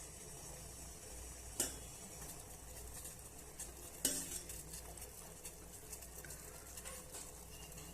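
Spoon clinking and scraping against a cooking pot as crushed herbs and spices are added to boiling water: two sharp clinks, about a second and a half in and about four seconds in, over a faint steady hiss.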